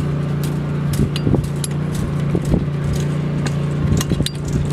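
Scattered metal clicks and knocks as the parapet wall anchor's sliding bracket is adjusted by hand and its retaining pin handled, over a steady low hum.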